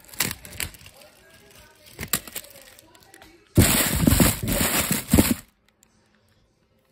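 Plastic wrappers of a pile of fun-size candy bars crinkling and rustling as a hand stirs through them. A few short rustles come first, then a loud, dense crinkling lasts about two seconds past the middle and stops suddenly.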